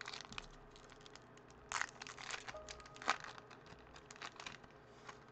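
Foil wrapper of a baseball card pack crinkling as it is torn open and handled. It comes in several bursts of crackle, the loudest about three seconds in.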